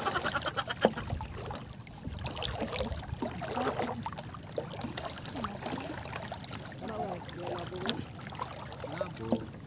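Seawater swishing and sloshing around the legs of people wading waist-deep through shallow, calm sea.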